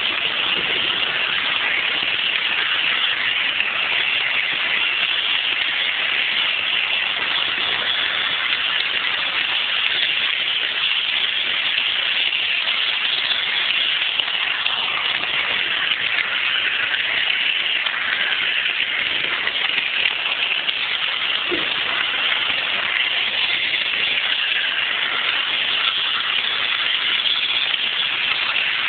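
Märklin model steam train running along its track, heard from a phone riding on the train: a steady rushing noise of wheels and motor, with a brief faint squeak about twenty seconds in.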